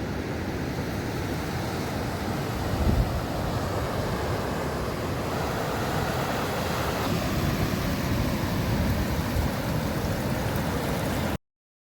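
Ocean surf washing onto a sandy beach, a steady rushing noise with wind on the microphone; it cuts off suddenly near the end.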